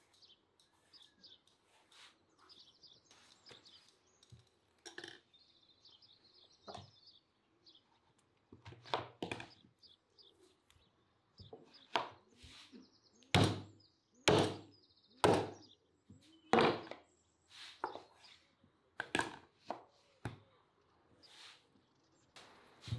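Knocks and thuds of a lamb carcass being cut up with a knife on a wooden board: meat and bone struck and pieces set down, several heavy strikes in quick succession about halfway through. Birds chirp faintly in the first few seconds.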